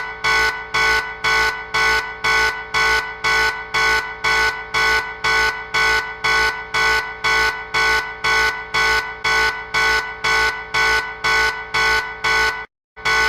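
Electronic alarm beeping about twice a second, each beep a harsh buzzing tone, with a brief cut to dead silence shortly before the end.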